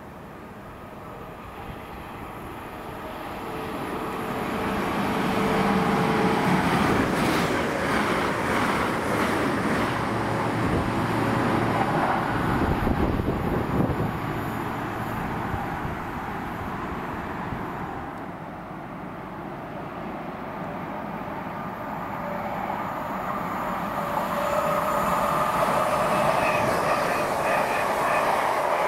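Train running through a railway station, with the noise of wheels on rails. It builds over the first several seconds, eases a little past the middle and swells again near the end.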